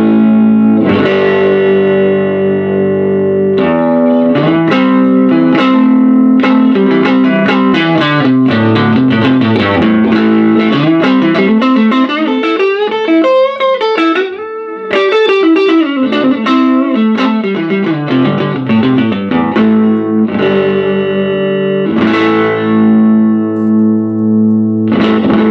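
Single-coil Stratocaster-style electric guitar played through a 1956 Gibson GA6 tube amplifier with its instrument channel at about noon, the amp breaking up into overdrive. It starts with ringing chords, moves into quick single-note lines through the middle, and ends on held chords.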